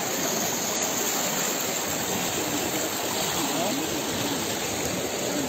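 Steady rush of fast-flowing floodwater, with indistinct voices faintly heard around the middle.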